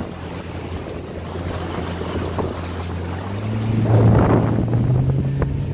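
Speedboat engine running under wind and water noise. Its note steps up in pitch about three seconds in as the boat speeds up, with the loudest rush of wind and spray about a second later.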